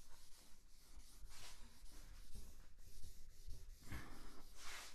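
Marker writing being wiped off a whiteboard by hand, in repeated rubbing strokes. The strongest swipes come near the end.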